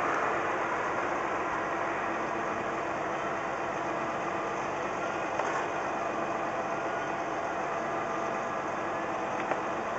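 Utility boom truck's engine idling steadily.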